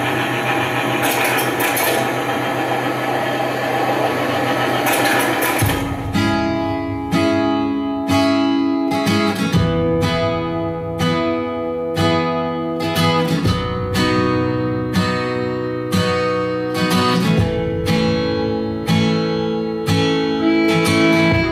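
Song intro on acoustic guitar: chords strummed in a steady rhythm, coming in about six seconds in after a dense, noisy wash of sound.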